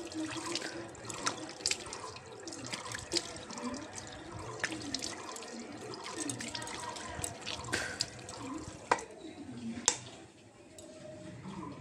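Tap water running into a sink, with splashing and sharp clicks and knocks, over a person's throat noises from hawking and rinsing.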